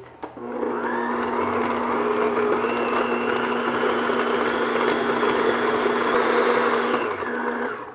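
Electric stand mixer running on medium speed, its paddle beating softened butter in a glass bowl: a steady motor hum and whine that spins up just after the start and stops shortly before the end.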